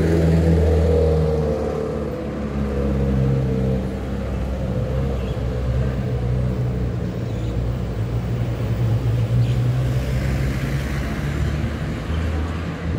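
Street traffic: motor vehicle engines running on the road beside the path, a low hum that shifts in pitch as the vehicles move.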